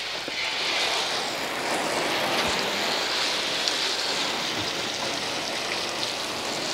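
Water from a hose spray nozzle hissing and splashing onto a car's painted hood, rinsing off wet-sanding residue. The spray comes on just as it begins and then runs steadily.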